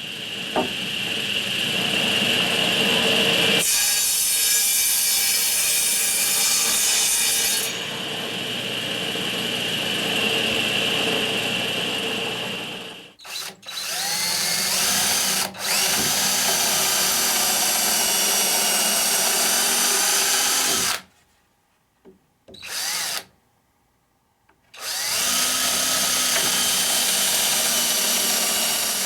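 Power drill running in long stretches of several seconds each. It stops briefly about 13 seconds in and twice more for a second or two a little past the 20-second mark, then runs again.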